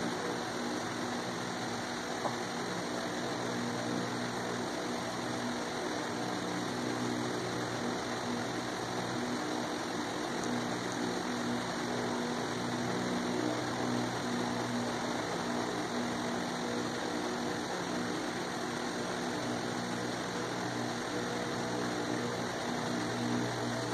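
A steady machine-like hum under a constant hiss, unchanging throughout.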